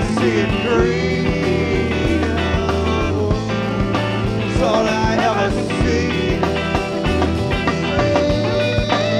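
Rock band playing a song recorded live to cassette: drums keeping a steady beat under guitar, bass and sliding melodic lines.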